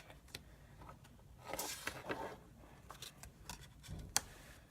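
Pokémon trading cards being handled. A brief papery rustle about one and a half seconds in, with scattered light clicks and taps, the sharpest just after four seconds.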